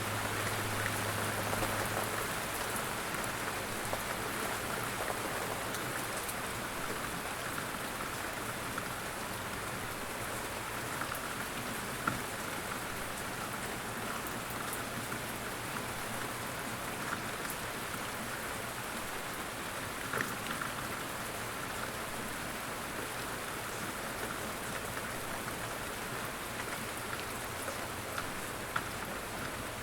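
Light rain falling steadily: an even patter with scattered single drops ticking out, a few louder than the rest. A low hum fades out about two seconds in.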